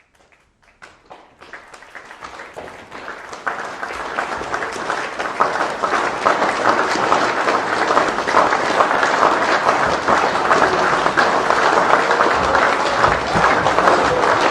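Crowd applause: a few scattered claps that build over the first several seconds into steady, full applause from many people.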